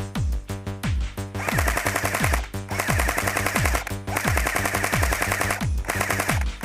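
Electronic dance music with a steady kick drum about twice a second. About a second and a half in, a dense, fast rattling layer joins it and breaks off briefly a few times.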